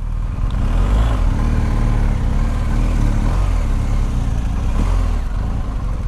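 BMW R 1250 GS boxer-twin engine running at low revs while the motorcycle rolls slowly to park, its pitch wavering slightly.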